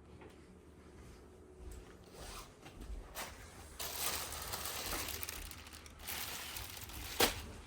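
Crinkling and rustling of plastic being handled close by, densest in the middle, with one sharp click near the end.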